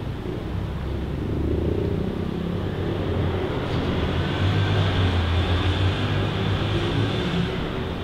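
City street traffic: a steady low engine rumble, with a car passing that swells from about halfway through and fades near the end.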